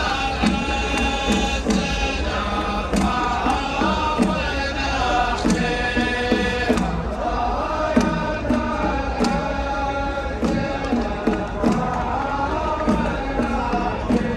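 A large crowd of football supporters chanting a song in unison over music, with sharp beats recurring through it.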